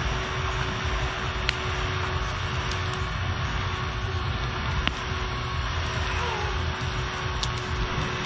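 Small battery-powered handheld fan running with a thin steady hum, its airflow rumbling on the microphone as it blows on a charcoal fire. A few sharp crackles come from the fire.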